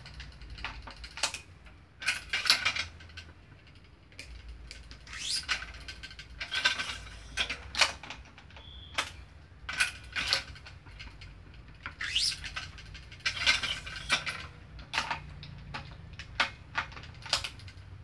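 Badminton racket being strung on a stringing machine, one strand tensioned at a time: irregular clicks and clacks from the string clamps and tension head, with short swishes of string drawn through the frame.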